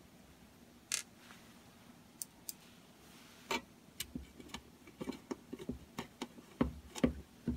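Screwdriver turning the mounting screws of a circuit board into a sheet-aluminium enclosure: a run of small sharp clicks and ticks, sparse at first and coming quicker in the last few seconds.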